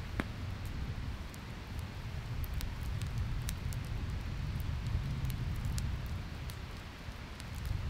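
Wood campfire burning: scattered sharp crackles and pops over a steady low rumble.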